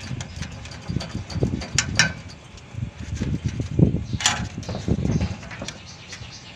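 Rustling, knocking and a few sharp clicks of hands working in an air-conditioner outdoor unit's wiring, pulling the red high-speed fan wire off the electronic control board. Two clicks come close together about two seconds in, and a longer scrape a little after four seconds.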